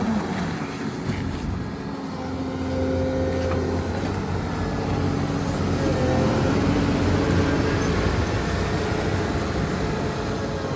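Diesel engine of a Volvo EW180C wheeled excavator running steadily, with a higher whine that comes and goes over it and the engine getting a little louder about halfway through.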